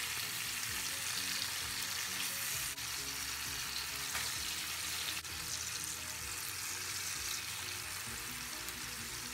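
Tuna steaks shallow-frying in coconut oil in a nonstick pan, a steady sizzle, while the pieces are turned over with a silicone spatula, with a couple of faint taps.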